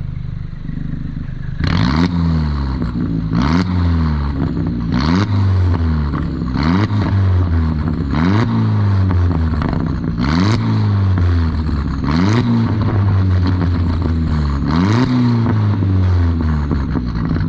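Volkswagen New Beetle 1.8T turbocharged four-cylinder idling, then blipped about eight times, each rev rising sharply and dropping back to idle, with a faint falling turbo whistle as it winds down. It runs through a 3-inch catless downpipe and a Cherry Bomb glasspack muffler with no resonator.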